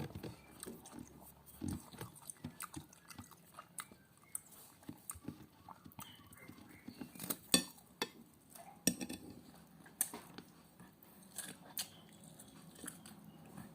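A person chewing and biting food close to the microphone: soft irregular mouth sounds with a few sharper clicks, the loudest about halfway through.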